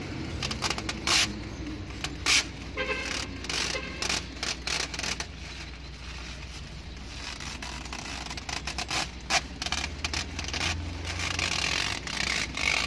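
A hand spray bottle squirting soapy water in several short spritzes, among the crinkling and scraping of old window tint film being peeled off the glass. A steady low hum runs underneath.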